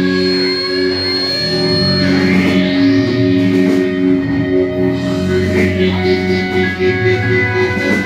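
Live band playing: electric guitars and bass holding droning, sustained chords, with a sweeping tone that rises and falls about three seconds in.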